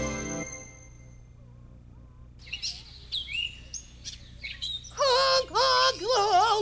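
The last notes of a song fade out, then after a short lull come a string of high bird chirps and tweets. About five seconds in, a louder warbling bird-like call with a quavering, wavering pitch takes over.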